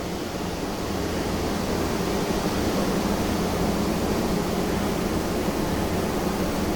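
Honeybee colony in an open hive buzzing steadily at close range: the hum of many bees' wings. The colony is queenless, and the bees are settling onto a newly introduced caged mated queen.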